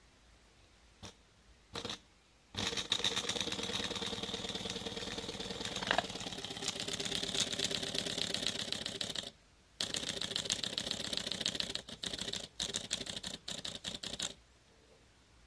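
Lutz Hielscher mini beam steam engine model, a tiny double-acting engine, started by hand at the flywheel and running with a fast, dense clicking of its piston and valve. After two short clicks it picks up about two and a half seconds in, stalls briefly near the middle, stutters with several short dropouts near the end and stops. It runs unevenly, which the owner puts down to dirt built up over eight years without maintenance.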